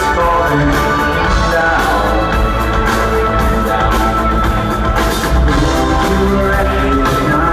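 Live rock band playing an instrumental passage with electric guitars, bass, keyboards and drums keeping a steady beat.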